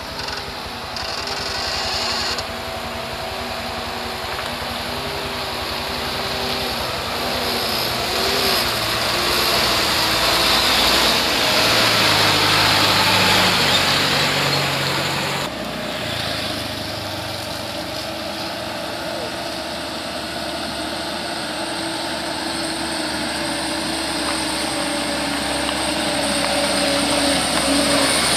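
Truck diesel engines running as the trucks pass. One truck goes right by, loudest about halfway through. Then, after an abrupt cut, a Mitsubishi Fuso Colt Diesel truck's engine grows louder as it approaches.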